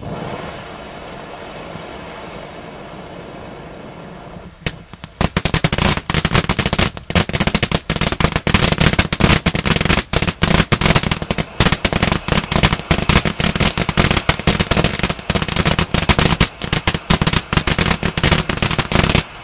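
Ground fireworks fountain set burning with a steady spraying hiss. From about five seconds in, a dense run of rapid crackles and pops joins it and stops shortly before the end, leaving the hiss.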